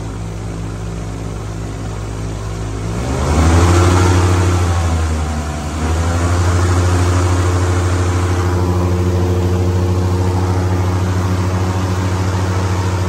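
Airboat's engine and air propeller running, revving up about three seconds in, easing off briefly just before six seconds, then holding a steady, louder cruising speed.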